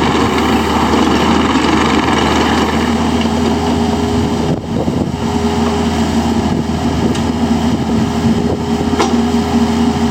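Kubota KX121-3 compact excavator's engine running steadily. A steady whine joins about three seconds in, and the level dips briefly around the middle.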